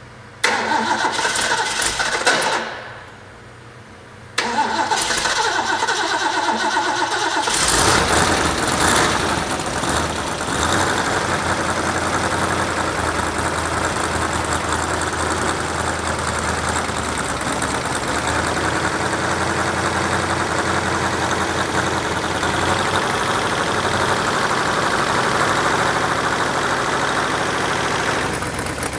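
Freshly rebuilt carbureted engine cranked on its starter: a first crank of about two seconds stops, a second crank begins about four seconds in and the engine catches a few seconds later, revs briefly, then settles into steady running. This is its first run after the distributor, which was 180 degrees off, was set right.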